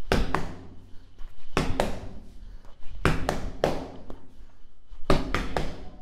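Padded Le Buckle boxing gloves punching a concrete wall in one-two combinations: four pairs of dull thuds, the two hits of each pair about a quarter second apart and the pairs about a second and a half apart, with a short echo in a small room.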